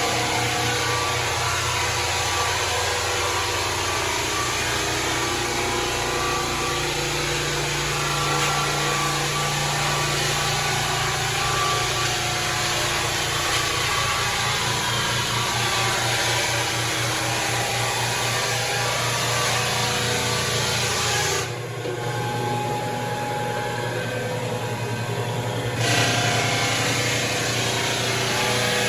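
Rented floor sander running steadily over hardwood flooring, a loud continuous machine hum with a dense hiss of sanding. Around three-quarters of the way through, the hiss thins out for about four seconds, then comes back.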